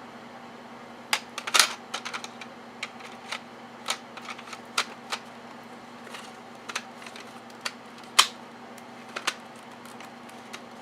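Irregular plastic clicks and snaps from handling and fitting together the parts of a fire alarm's housing, with a sharper snap a little after eight seconds. A faint steady hum runs underneath.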